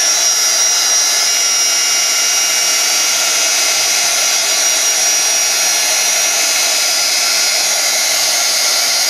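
Heat gun running steadily, blowing hot air with a thin high whine that fades out about six seconds in. It is drying acrylic paint over a layer of white glue so the paint shrinks and cracks into a crackle finish.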